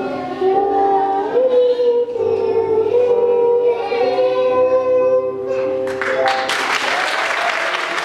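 A song sung with musical accompaniment, children's voices among the singers, in long held notes. About six seconds in the song ends and an audience breaks into applause.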